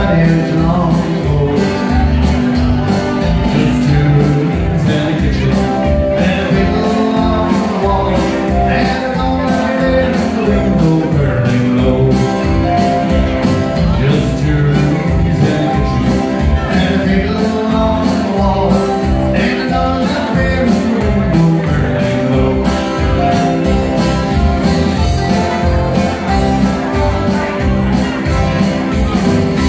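Live country dance-band music, played loud through the PA, with guitar and keyboard over a steady, even drum beat.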